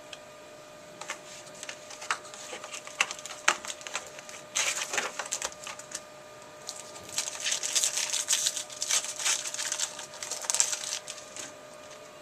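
Trading cards and their packaging being handled: scattered sharp clicks, then bursts of high-pitched crinkling.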